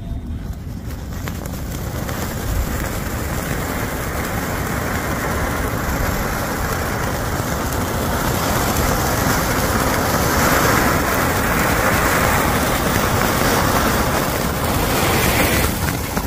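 'Apple' Diwali firecracker burning with a continuous hissing rush. It starts suddenly, grows louder over the first ten seconds or so, and fades just before the end.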